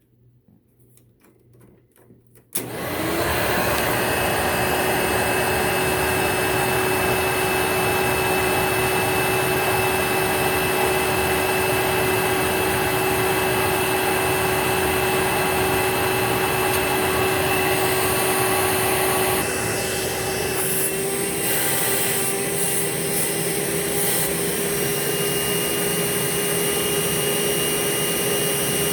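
Hoover Dimension upright vacuum's motor switched on about two and a half seconds in, spinning up with a slightly rising whine and then running steadily, its motor bearings freshly replaced. Around twenty seconds in its sound shifts and drops a little in level.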